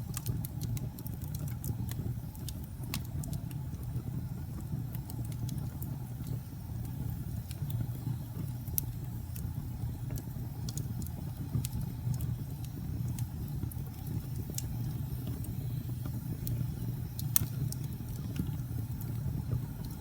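Logs burning in a fireplace: a steady low roar with scattered sharp crackles and pops, one pop louder than the rest near the end.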